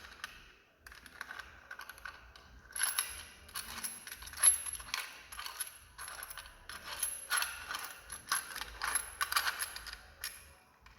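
Small metal parts of a recessed light fixture's junction box clicking and rattling as a cable connector is fitted to it. A few scattered clicks at first, then a busy run of clicking and rattling from about three seconds in, with a short lull in the middle.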